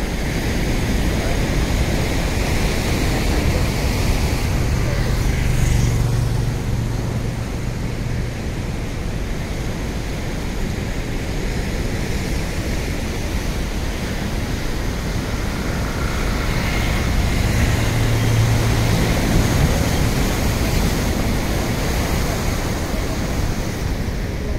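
Rough monsoon sea: heavy surf breaking on a rock seawall and rushing back, a loud, steady rush of water. A low hum swells twice, about five seconds in and again around eighteen seconds.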